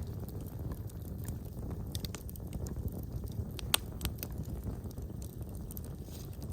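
Wood fire burning in a fireplace: a steady low rumble of flames with scattered small crackles, and one sharper pop a little past halfway.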